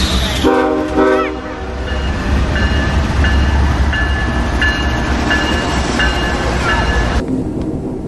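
Union Pacific diesel freight locomotive passing, with the low rumble of its engine: a short horn blast about half a second in, then its bell ringing about one and a half strikes a second. The sound changes abruptly near the end to a quieter, steady rumble.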